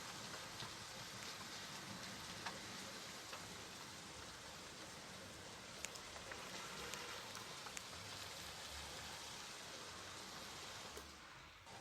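Steady rain falling, an even hiss with individual drops ticking sharply now and then. The sound dips briefly and comes back just before the end.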